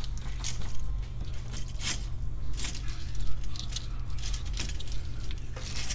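Irregular light clicks and rattles of a hybrid battery pack's plastic parts and wire harness being handled and set down on a wooden bench, over a steady low hum.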